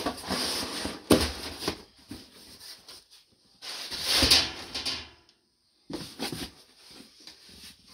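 Rustling and crinkling of packing paper and cardboard boxes being pushed and moved aside, with a few thumps of boxes knocking together. The sound cuts out completely for about half a second a little past the middle.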